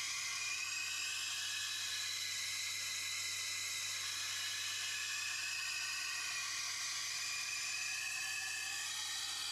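Tormek T8 wet sharpener running while a Global chef's knife in its jig is ground against the turning wheel, with heavy grinding to take out a chip: a steady hiss of steel on the wet wheel that swells and fades as the blade moves, over the motor's low hum.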